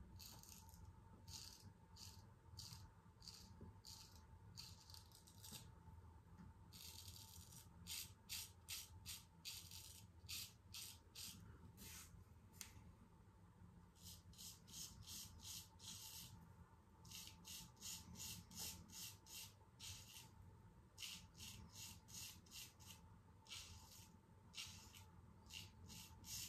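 Damascus-steel straight razor scraping a day's stubble through shaving lather: faint, short strokes about three a second, in runs with short pauses between.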